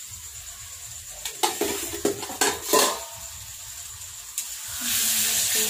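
A metal ladle stirring masala in a steel kadai, knocking against the pan a few times between about one and a half and three seconds in. About five seconds in, a loud sizzle starts as the masala fries in the hot oil.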